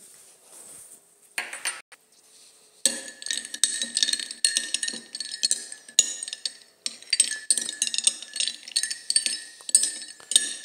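Ice being crunched between the teeth close to the microphone: one short crunch, then from about three seconds in a dense run of sharp cracks and crackles with a brief pause in the middle.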